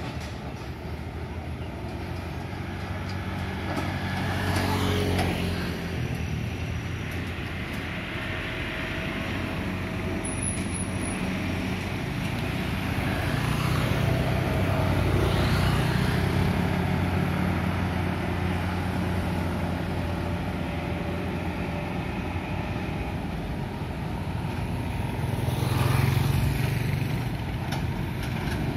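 Road traffic: motorcycles and small trucks passing a junction one after another, a steady rumble that swells as each vehicle goes by, loudest about five, fifteen and twenty-six seconds in.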